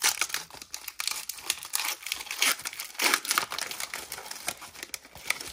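Foil wrapper of an Upper Deck hockey card pack being torn open by hand, a dense crinkling crackle with sharp snaps that starts abruptly.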